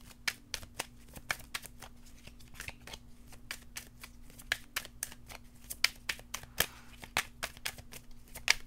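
A deck of tarot cards being shuffled by hand: a run of quick, irregular card snaps and riffles, several a second.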